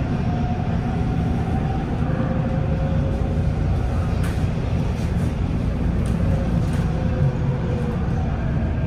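MARTA rapid-transit railcar running, heard from inside the passenger cabin: a steady low rumble of wheels on rail with a faint high whine that drifts slightly in pitch, and a few light ticks around the middle.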